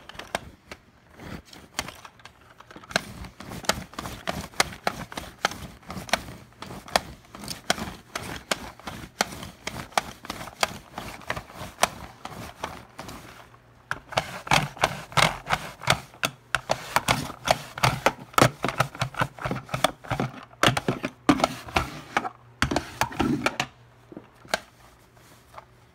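Handheld reusable pet hair remover roller pushed back and forth over fabric, clicking rapidly in quick runs as its roller turns and sweeps dog hair into the collection chamber.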